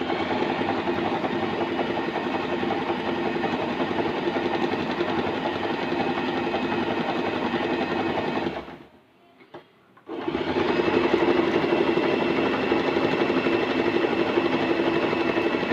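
Usha Allure electric sewing machine stitching a picot edge on fabric with its zigzag stitch, running steadily for about eight seconds. It stops briefly with a couple of small clicks, then runs again to the end.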